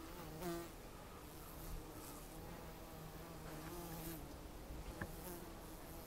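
Bees buzzing in flight, a faint low hum that wavers in pitch and fades in and out as they fly past.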